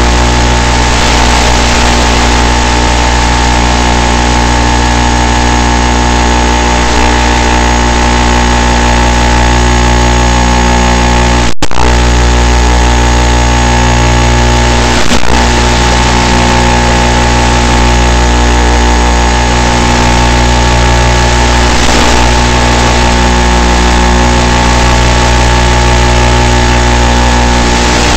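Brushless electric motor and 7x4 propeller of an FPV model plane running steadily at cruise throttle: a constant hum with a high whine over hiss. The sound drops out for an instant about halfway through.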